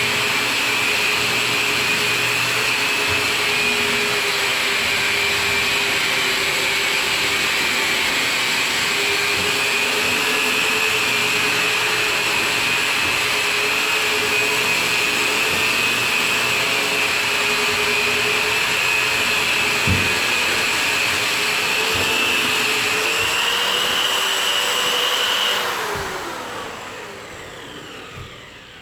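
Electric drywall sander with 240-grit paper running steadily on a ceiling, a high whine over a lower hum with a knock or two as the pad meets the surface. About 26 seconds in it is switched off and winds down, its pitch falling away.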